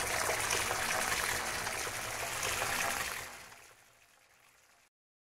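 Rushing, bubbling underwater sound effect, a dense wash of bubbles that fades away after about three seconds and stops just before the end.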